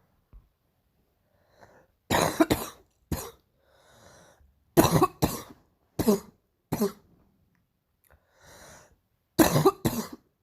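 A girl's barking cough: three bouts of several sharp coughs each, with a breath drawn in between the bouts.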